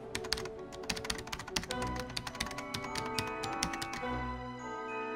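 Rapid clicking like keyboard typing over background music with held notes; the clicking stops about four seconds in and the music carries on.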